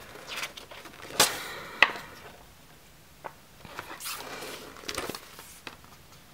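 Paper page of a spiral-bound desk calendar being flipped over and handled: light rustling with scattered clicks, including two sharp clicks in the first two seconds and a softer rustle about four to five seconds in.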